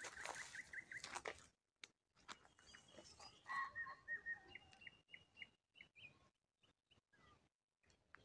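Small birds singing faintly in roadside trees: quick runs of repeated chirps, with a burst of notes near the start and another around the middle, then scattered single notes with gaps between them.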